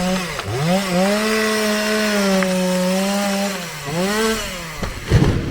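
Two-stroke chainsaw making a felling cut. The engine pitch sags and recovers twice and holds steady through the middle, then the saw drops away and a heavy low thud comes near the end.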